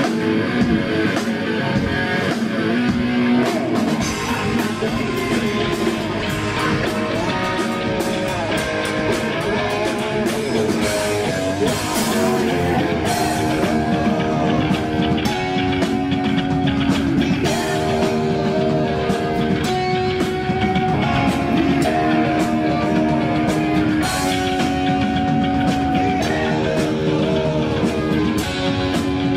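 Live rock band playing, electric guitar over a drum kit.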